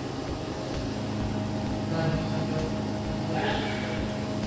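TIG welding arc burning steadily on the root pass of a stainless steel pipe: a constant electrical hum with a hiss over it, brightening briefly about three and a half seconds in.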